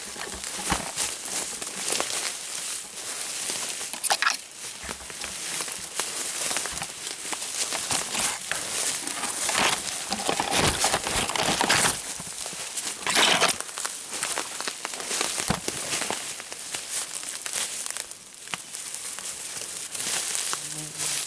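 Irregular rustling and crunching of dry leaves and brush underfoot: footsteps moving through woodland undergrowth.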